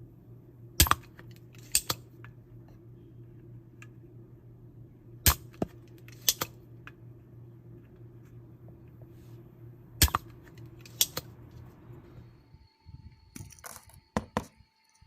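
Spring-loaded desoldering pump with a silicone nozzle being cocked and released three times, each use a pair of sharp clicks about a second apart, over a steady low hum. The hum stops near the end, followed by a few lighter clicks.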